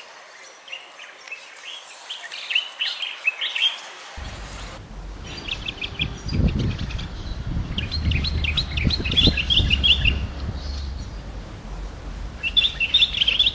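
Common bulbul singing: quick, chattering phrases of high notes, four phrases with short pauses between them. A low rumble runs underneath from about four seconds in.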